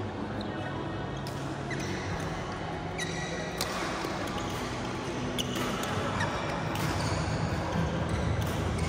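Badminton rally: sharp cracks of rackets striking the shuttlecock, mixed with short squeaks of court shoes on the mat and a steady low hum.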